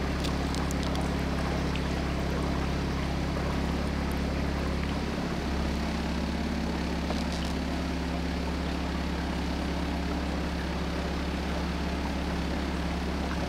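Outboard motor of a small fibreglass cruiser puttering away steadily, running smoothly.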